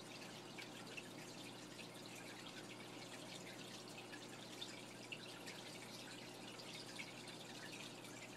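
Faint aquarium water: many small drips and trickles over a steady low electrical hum, the sound of a running tank filter.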